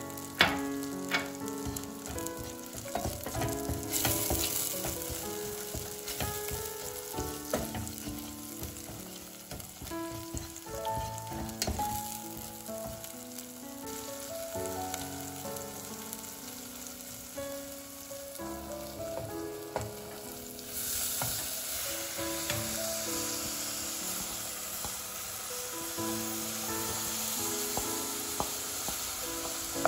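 Tomato and chili paste sizzling as they fry in butter and oil in a stainless steel pot, with a wooden spoon stirring and clicking against the pot. The sizzle grows louder and brighter about two-thirds of the way through.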